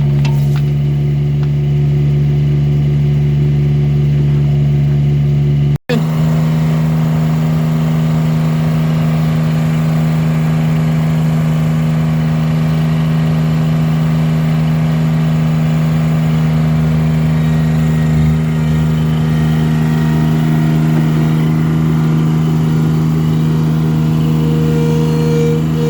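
Engine of an Allmand 225 mini backhoe running at a steady speed, with a single momentary dropout about six seconds in.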